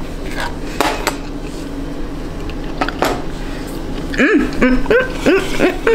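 A few light clinks and knocks of a fork and dishes over a steady low hum, with a short wordless vocal sound near the end.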